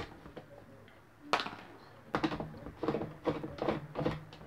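Plastic shell of a Nerf blaster being handled while it is taken apart: a sharp knock about a second and a half in, then a run of short clicks and knocks, two or three a second.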